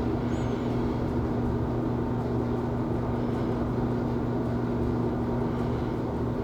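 Steady low background hum, even throughout, like an air conditioner or fan running in the room.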